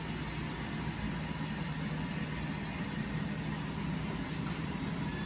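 Steady low hum of a motor or machine running, with one faint click about three seconds in.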